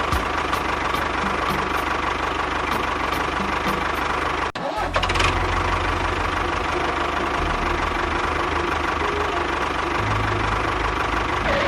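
A small engine running steadily with a rapid pulsing beat, briefly cutting out about halfway through and then running on.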